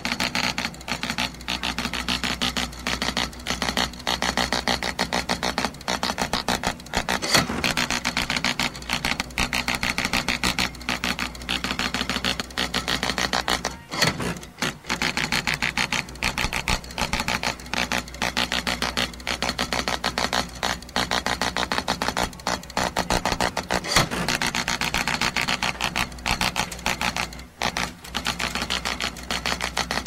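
Dot matrix printer printing: a fast, even rasp of print-head pin strikes that runs on steadily, broken by a few short pauses.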